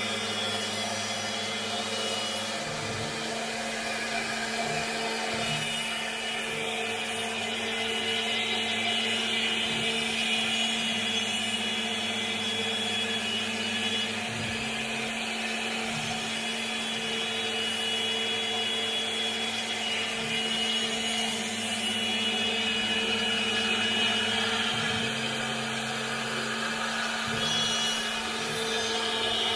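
CNC router spindle with a 2-flute 4 mm end mill milling PVC foam board: a steady running tone with cutting noise over it, and a lower hum that comes and goes every second or two as the cut goes on.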